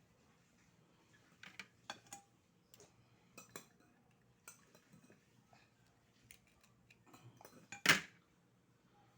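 Scattered sharp clinks and clatter of oyster shells and tableware being handled while eating oysters, about a dozen hard clicks with the loudest clatter near the end.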